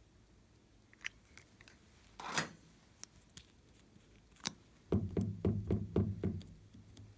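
Glossy slime being pressed and stretched by hand, making sticky clicks and pops: a few scattered clicks, a short wet squelch just after two seconds, then a quick run of about six pops with low thuds near the end.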